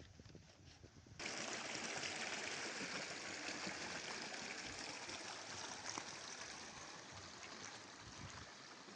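Flowing water of a stream: a steady rush that cuts in suddenly about a second in and eases slightly toward the end.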